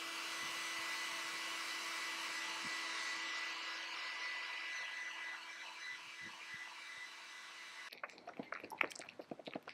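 Handheld hair dryer blowing steadily on a kitten's wet fur. About eight seconds in it cuts off, and a young kitten suckling from a feeding bottle takes over with quick, irregular wet clicks.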